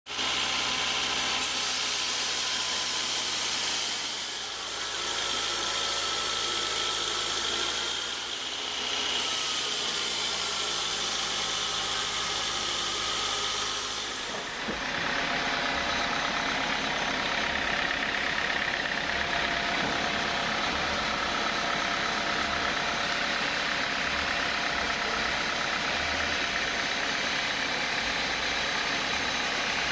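Sawmill machinery running steadily, with a whining tone over its drone. About halfway through, the sound changes character and takes on an uneven low throbbing.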